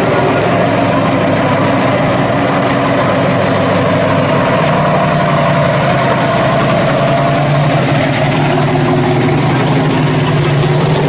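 Engine of a 1970 Chevy Vega pro street drag car running loud and steady at low speed while the car rolls slowly away.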